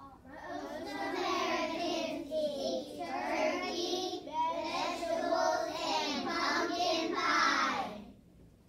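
Young children singing a short song, unaccompanied, in three phrases with brief breaks between them; the singing stops shortly before the end.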